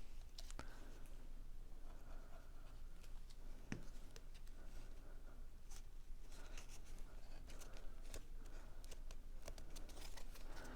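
Faint rustling, scraping and small clicks of cardstock being handled, as paper tabs are folded over and pressed down.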